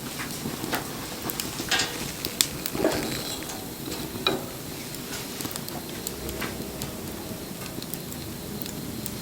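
Wood bonfire crackling and hissing steadily, with scattered sharp pops from the burning wood, several louder ones in the first half.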